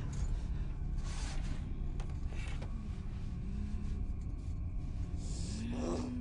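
Film sound design of a furnace boiler room: a steady low industrial rumble with short bursts of hissing, and twice a low drawn-out tone, the second just before the end.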